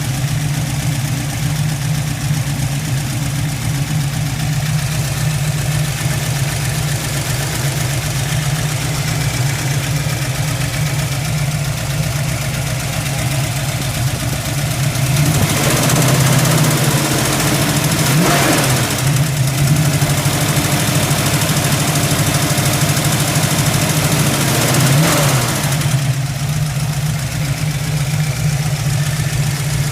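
1967 Mustang's 331 stroker small-block Ford V8 running with a light sewing-machine-like ticking, which the owner puts down to either the roller lifters or the roller rockers. It idles steadily, is revved up from about halfway with a couple of rises and falls in pitch, and drops back to idle a few seconds before the end.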